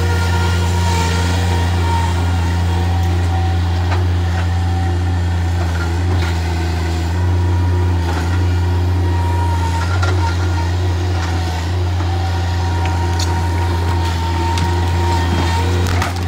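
Bobcat MT100 stand-on mini track loader's diesel engine running steadily, with a few faint knocks from the debris it is handling.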